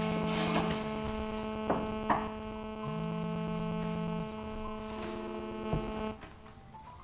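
A steady buzzing drone with many overtones, joined twice by a lower held tone and once by a higher one, with a few sharp clicks; it cuts off suddenly about six seconds in.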